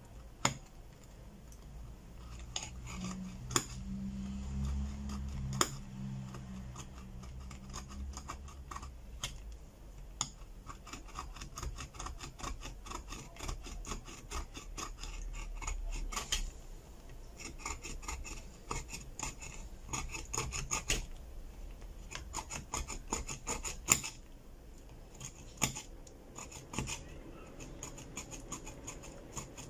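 Metal scraper tool scratching hardened LCD adhesive off a phone's metal midframe in quick repeated strokes, with a few sharper clicks. This is the old screen glue being cleaned off so the new LCD can seat.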